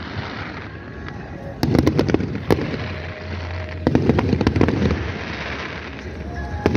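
Aerial fireworks bursting: two volleys of rapid crackling pops over low booms, about two seconds apart, the first about a second and a half in.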